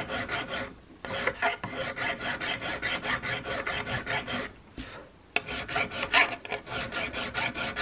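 Hand file rasping a sheet-brass patchbox side plate set into a wooden rifle stock, in quick short strokes with two brief pauses, about a second in and near the middle. It is the final fitting, filing the brass down until it sits flush with the wood.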